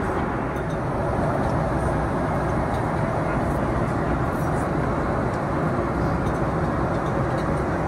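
Steady cabin noise of a Boeing 777 airliner in cruise: an even rush of airflow and engine noise heard inside the cabin, unchanging throughout.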